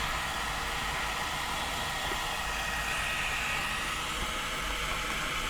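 Hot air tool blowing steadily, a constant airy hiss set to about 360 degrees for melting hot glue.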